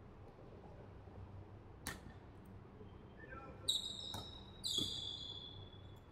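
Basketball shoes squeaking on a hardwood gym floor: two short, high squeaks about four and five seconds in. A single sharp knock comes about two seconds in, with fainter knocks near the squeaks.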